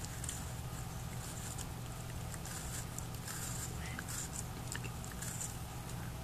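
Husky puppy gnawing and biting into a green apple: irregular crunches and wet chewing, over a steady low hum.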